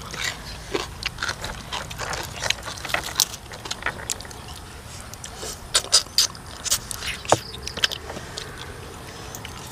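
Close-up eating sounds: slurping of rice noodles, wet chewing and lip smacks, with irregular sharp clicks and crackles that come thickest and loudest about six to eight seconds in.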